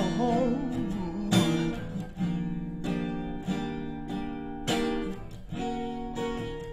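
Acoustic guitar strummed solo, chords ringing between a few harder strums.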